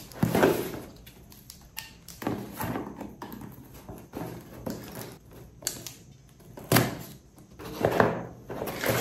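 Cardboard parcel being opened by hand: packing tape peeled and torn, and the box's flaps and paper packing rustling and scraping, with a few sharp knocks. The handling comes in uneven bursts, loudest just after the start and again near the end.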